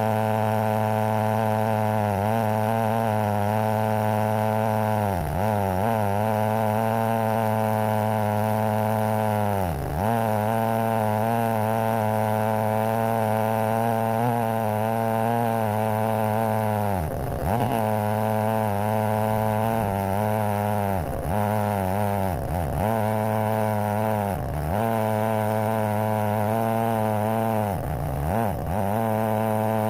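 Stihl 070 chainsaw, a big two-stroke, running at full throttle in an Alaskan chainsaw mill ripping a log. Its engine speed sags briefly and recovers about eight times as the cut loads it.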